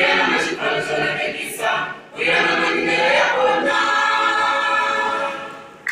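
Church choir singing a gospel hymn a cappella in harmony, a held chord fading out near the end.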